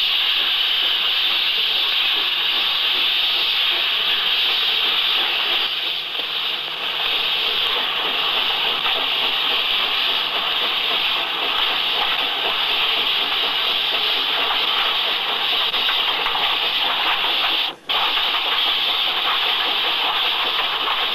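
A loud, steady hiss, broken by a split-second dropout near the end.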